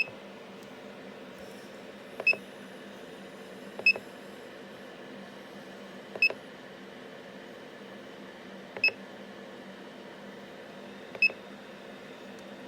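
Dyna Mechtronics DM3000 CNC lathe running with a steady hum. Six short, high pings stand out above it at uneven gaps of about two seconds.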